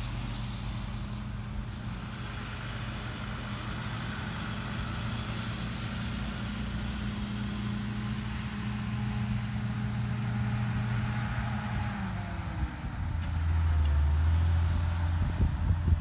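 Heavy vehicle engine running steadily. About three quarters of the way in its pitch falls to a lower, steady hum, and it grows louder.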